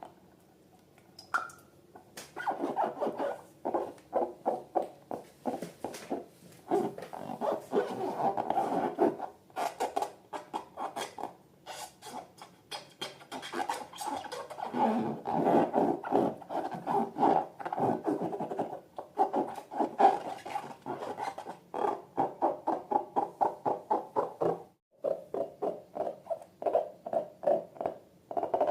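Hands rubbing and squeezing slime and rubber balloons, a rapid run of short rubbing strokes at several a second. It starts about two seconds in and breaks off briefly near the end.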